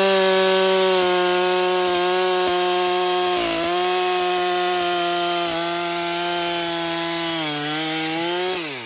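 Two-stroke STIHL chainsaw held at full throttle, cutting through a felled conifer log. The engine pitch sags slightly under load twice, then winds down near the end as the throttle is released.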